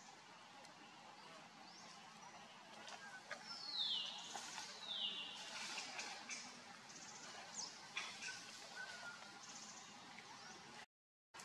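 Forest ambience with scattered bird chirps and calls, the loudest being two falling calls about four and five seconds in.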